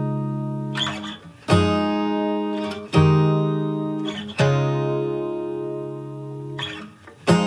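Background music: an acoustic guitar strumming slow chords, each chord left to ring out and fade before the next strum, with fresh strums roughly every one and a half seconds.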